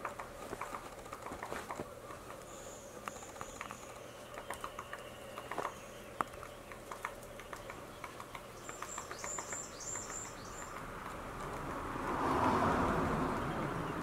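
Japanese pygmy woodpecker pecking at tree bark: irregular light taps throughout. High thin bird notes come twice, and a swell of rushing noise near the end is the loudest part.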